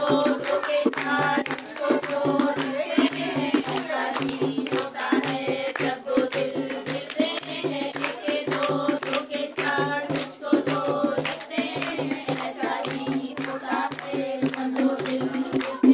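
A group of women singing a folk song together to a hand-played dholak drum keeping a steady, fast rhythm.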